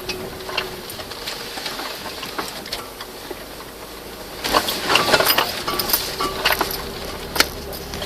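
Vehicle jolting over a rough forest track: loose rattling and knocking, with a dense, loud burst of knocks about halfway through.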